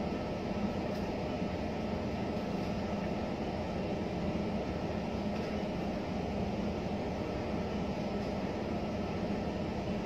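A steady mechanical drone with a constant low hum, unchanging throughout.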